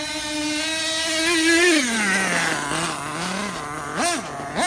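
Freshly broken-in Dynamite .28 nitro engine of a Losi 8ight-T RC truggy, held at high revs, then dropping to idle as the throttle is released about two seconds in. Near the end come two quick throttle blips.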